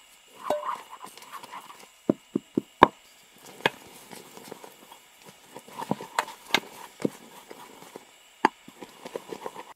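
Wooden spoon stirring thick, sticky melted gummy candy in a small pot: soft squelching with sharp knocks of the spoon against the pot, several in quick succession about two seconds in and a few more later.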